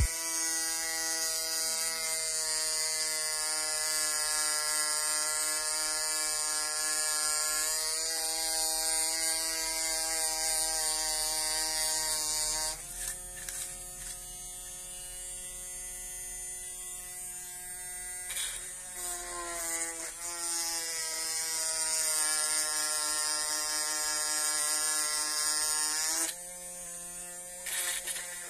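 Homemade mini drill, a small DC motor with a brass collet chuck, whining steadily as its fine bit drills into a plastic power-bank case, with a high hiss while it cuts. About halfway through the bit comes clear of the plastic: the whine jumps higher and quieter and the hiss stops. A few seconds later the pitch sags again as the bit bites back in. Near the end there is another short lift, with the same higher whine.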